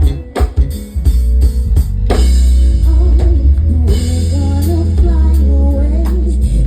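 Live band music: a few separate drum hits in a break, then about two seconds in the full band comes back in with heavy bass and drums, and a wavering melody line above.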